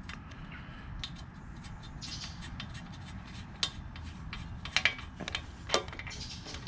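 Small, irregular metal clicks and ticks as a nut is fitted and threaded by hand onto a small-engine carburetor's mounting stud, over steady low background noise. The sharpest clicks fall a little past halfway.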